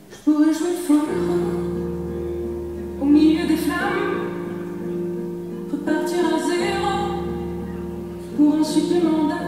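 Music for the dance routine: a woman's singing voice with a wavering sung melody over held low bass notes, coming in suddenly a moment after the start.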